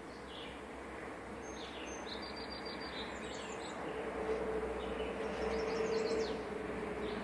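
Small birds chirping again and again over a steady outdoor background noise with a low hum that grows a little louder about four seconds in.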